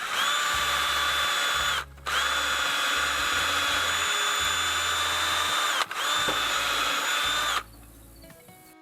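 Power drill whining at a steady speed in three runs, about two, four and one and a half seconds long, each winding down briefly as the trigger is released, as it drills pilot holes into the rack's wooden back.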